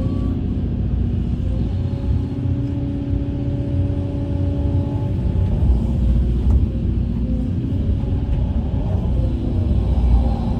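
Engine of a heavy earthmoving machine running steadily with a low rumble.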